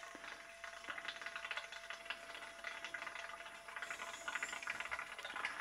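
CO2 from a gas bottle flowing into a pressure fermenter of cider: a faint hiss with rapid, irregular fizzing and crackling as the fermenter is pressurised toward 15 psi.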